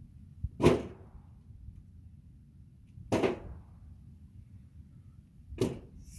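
Three short, sudden knocks, each with a brief rushing swish, about two and a half seconds apart.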